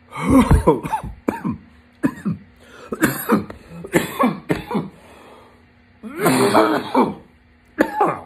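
A man coughing in a string of loud, rasping coughs, with a longer coughing fit about six seconds in. The coughing follows a hit of vapour from a 510 cartridge vape pen.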